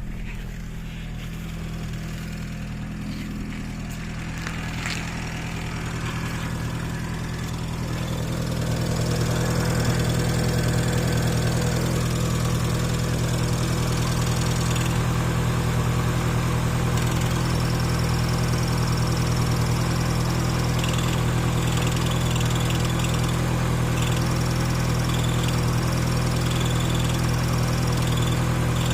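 Great Wall Hover H2 engine idling steadily, with a high whistle from the clutch release bearing that comes and goes in short spells from about halfway in; the whistle is the sign of a worn release bearing.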